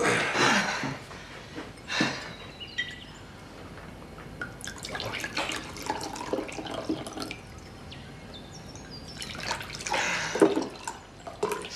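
Water splashing and dripping in irregular bursts.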